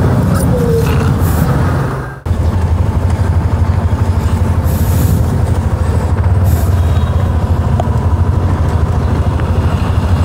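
Riding on a Yamaha NMAX scooter: a steady, heavy rush of wind over the rider's microphone with the engine running underneath. There is a brief sharp dropout about two seconds in.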